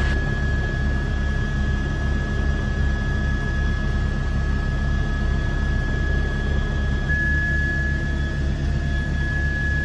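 News helicopter's turbine engine and rotor running steadily, with a low throbbing rotor beat and a constant high-pitched whine that grows louder about seven seconds in.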